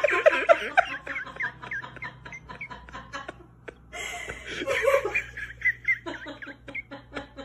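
A person laughing in quick repeated bursts that fade out over the first few seconds, then a second bout of laughter from about four seconds in.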